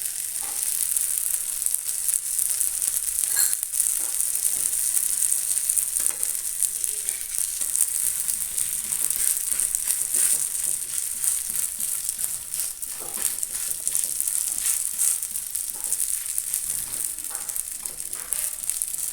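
Oil sizzling steadily on a hot tawa under a frying vegetable-and-egg batter porota, freshly oiled after being flipped, with a few faint crackles.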